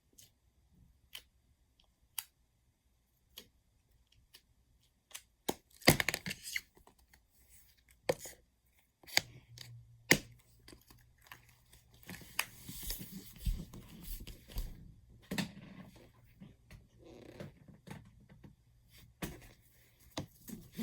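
Slime and its plastic container being handled: scattered sharp clicks and snaps, then crackling and crinkling through the second half.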